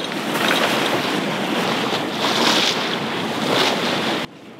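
Wind buffeting the microphone on the foredeck of a small sailboat under sail, with water washing past the bow, in a loud rushing noise that surges now and then. It drops suddenly to a quieter wash near the end.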